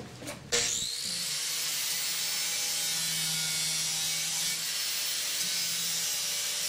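Corded angle grinder with a cutting wheel starting up about half a second in, its whine rising to speed, then running steadily as it cuts into a fiberglass panel, with a harsh high hiss from the cut.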